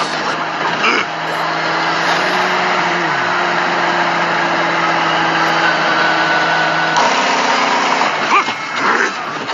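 A vehicle engine running steadily: a constant low drone over an even hiss. About three seconds in there is a short falling glide, and the sound changes about seven seconds in.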